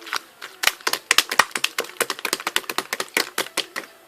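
A rapid, irregular run of sharp clicks and cracks, several a second, starting about half a second in and stopping just before the end.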